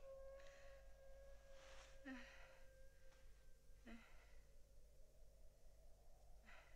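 Faint sighing breaths from a woman, about four of them a second or two apart, over a faint held tone that fades out about three and a half seconds in.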